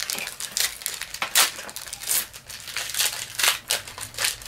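Foil Yu-Gi-Oh booster-pack wrappers crinkling as the packs are handled and opened, a string of irregular sharp crackles with a few louder ones.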